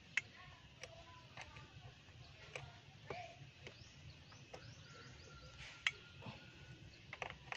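Scattered light metallic clicks and taps of an open-end wrench on the negative battery terminal clamp as it is refitted and tightened, the sharpest about six seconds in. Faint bird chirps in the background.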